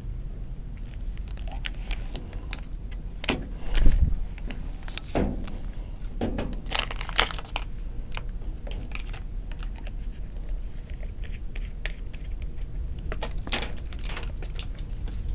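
Scattered clicks, rattles and small knocks of hard objects being handled, with one louder knock about four seconds in, over a steady low hum.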